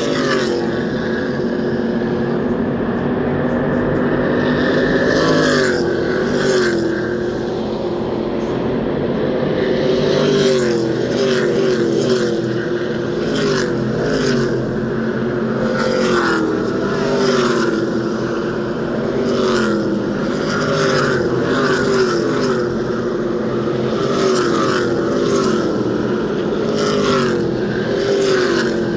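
NASCAR stock cars' V8 engines at racing speed, car after car passing close by, each with a quick drop in pitch as it goes past, over the steady sound of the rest of the field circling the track.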